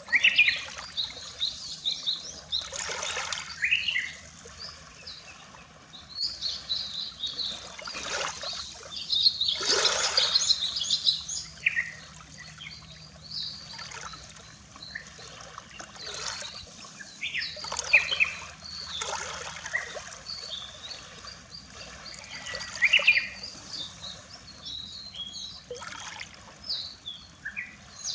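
Small birds calling continuously in many quick, short high notes, while small waves wash and splash on the shore every few seconds.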